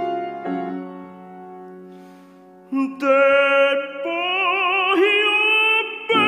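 Piano ballad accompaniment: a struck piano chord rings and fades into soft held notes. About three seconds in, a tenor voice enters singing in classical operatic style, holding long, loud notes with wide vibrato that climb in pitch.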